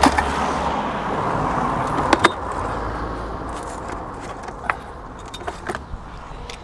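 A passing road vehicle, its noise fading away over a few seconds, with a few sharp metallic clinks of rusty scrap iron such as scaffold clamps being handled; the loudest pair comes about two seconds in.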